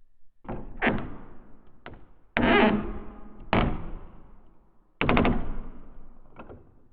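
Wooden door sound effect: a run of about seven sudden knocks and bangs, each dying away with a reverberant tail. The loudest comes about two and a half seconds in, and the one near five seconds is a quick triple stroke.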